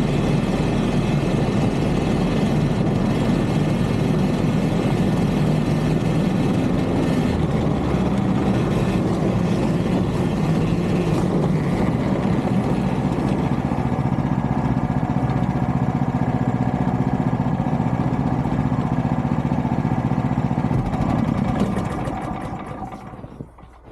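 Polaris Ranger UTV engine running at a steady trail speed through snow, a constant drone that fades away near the end.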